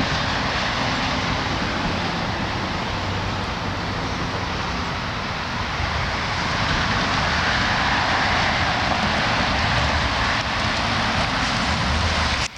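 Steady rushing noise of riding a bicycle: wind over the microphone and tyres rolling on the path, getting slightly louder about halfway through.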